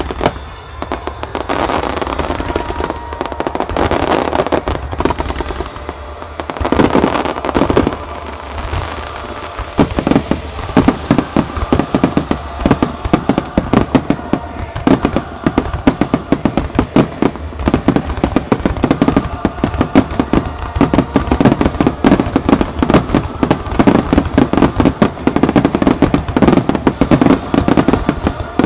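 Fireworks display in full barrage: ground-launched comets, mines and aerial shells going off. It turns into a dense, rapid run of bangs and crackles from about ten seconds in.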